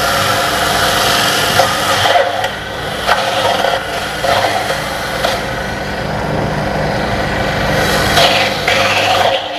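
Agrowindo PRT-50 electric coconut grater running under load: its spinning grater drum rasps coconut pieces into shreds over the steady hum of the electric motor, with occasional knocks as pieces are pushed in.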